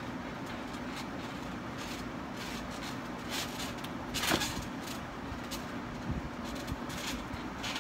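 Steady hum of an air-conditioning unit right at the microphone, with the creak and jangle of trampoline springs as someone bounces, loudest about halfway through when a flip lands.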